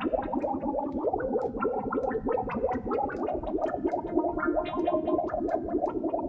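Synthesized water-droplet patch from the Vital soft synth: a rapid, continuous stream of short pitched blips whose pitch bends and wobbles, giving a bubbly, watery texture. The patch is run through a flanger for a more underwater sound.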